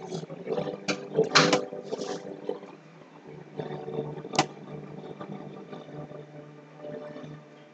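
Open-air ambience with a steady low hum, broken by a cluster of sharp knocks about a second in and one more about four and a half seconds in.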